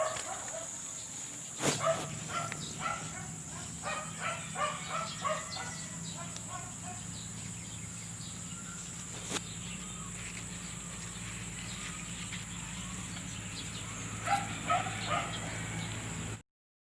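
Birds calling in short runs of chirps, twice, over a steady low hum that starts about two seconds in and a steady high-pitched whine. The sound cuts off abruptly just before the end.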